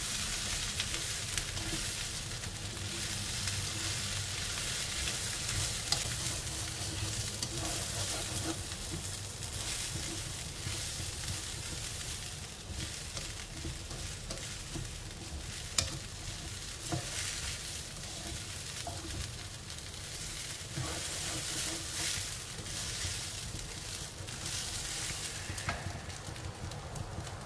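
Uncooked rice, Chinese long beans and pork sizzling as they are stir-fried in a wok, with a spatula scraping and tossing the mix in repeated strokes. One sharper knock of the spatula a little past halfway.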